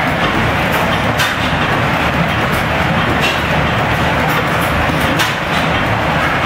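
Antique stationary flywheel gas engines running together, a loud steady mechanical din with irregular sharp clicks and knocks.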